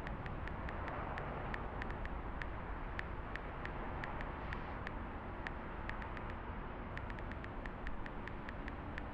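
Steady outdoor background noise, like a distant traffic hum, with many quick, light, irregularly spaced ticks over it.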